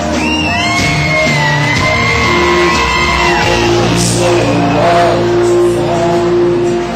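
Live country-rock band playing loud in a club, with a long held note that bends in pitch through the first few seconds and shouts and whoops from the crowd.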